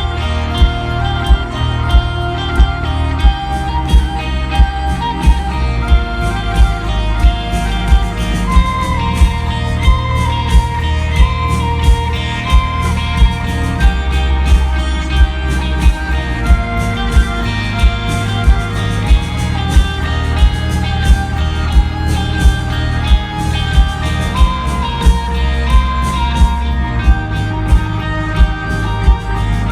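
Grunge rock band playing live: an instrumental passage of guitars, bass and drums with a steady beat of about three hits every two seconds.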